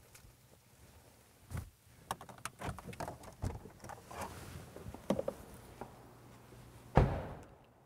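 Irregular clicks, knocks and handling noises inside a parked car's cabin, over a low steady hum, ending with one loud heavy thump about seven seconds in.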